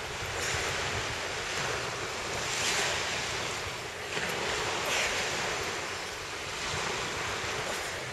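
Small waves washing onto a sandy beach: a steady surf hiss that swells and eases every two seconds or so, with some wind on the microphone.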